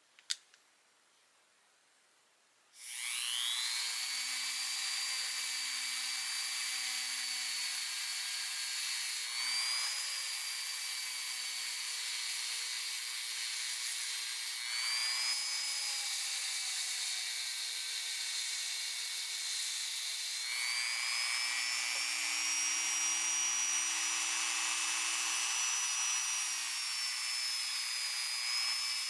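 A click, then about three seconds in a small high-speed power tool spins up to speed with a high whine and runs steadily, its pitch dipping and rising a few times, as used with cleaning wheels on a small pipe wrench.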